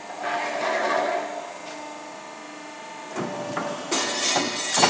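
Benson guillotine shear running with a steady hum, working a stroke set off from its foot pedal: a rushing, clattering stroke lasting about a second just after the start, then a run of sharp metallic knocks and clanks from about three seconds in.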